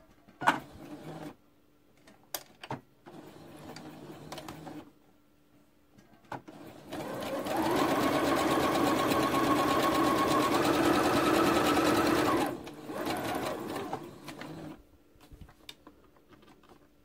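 Brother BC2100 computerized sewing machine stitching with a gathering foot on its longest stitch, gathering fabric into a ruffle. A short run and a quieter run come first, then a louder steady run of about five seconds that drops back and stops.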